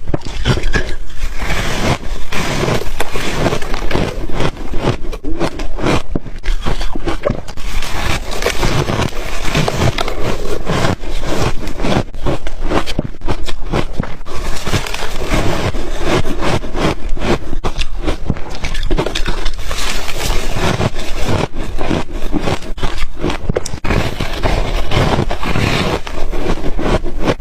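Freezer frost crunching and crackling close to the microphone, a dense run of crisp crackles with no pause.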